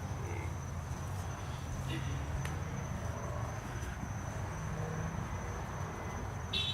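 Minibike's small single-cylinder engine idling steadily, with crickets chirping in a high, steady trill.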